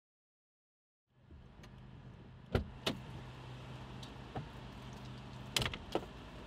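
Vehicle engine idling with a steady low hum inside the cab, starting about a second in. Several sharp clicks and knocks are heard over it.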